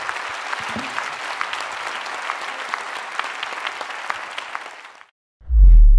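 Audience applauding, a dense wash of clapping with scattered sharper claps, cutting off suddenly about five seconds in. Near the end comes a short, deep boom, louder than the applause.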